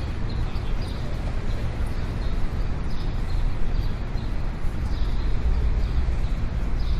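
City street ambience: a steady low rumble of traffic with short high chirps scattered through it.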